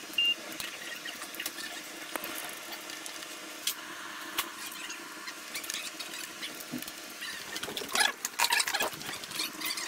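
Workshop background with scattered small clicks and a faint steady hum. A few short high squeaks come near the end.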